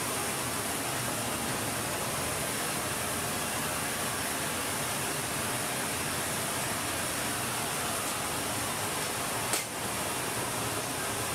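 Steady rushing hiss of a running C-17 Globemaster III cargo aircraft, heard from inside its open cargo hold, with a single sharp click about nine and a half seconds in.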